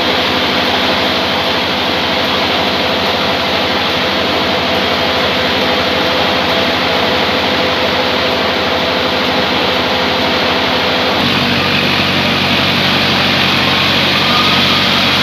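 Sawmill saw machine running steadily with a loud mechanical drone. About eleven seconds in, its tone changes abruptly.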